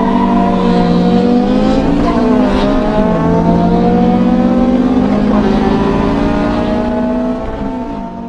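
Car engine accelerating hard through the gears: the pitch climbs steadily, drops sharply at two upshifts about a third and two-thirds of the way in, then climbs again and fades away near the end.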